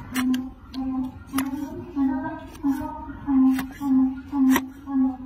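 Background music with a steady, repeating melody. Over it come sharp, crisp cuts, about once a second, from a large hoof-trimming knife slicing through the donkey's rotten hoof horn.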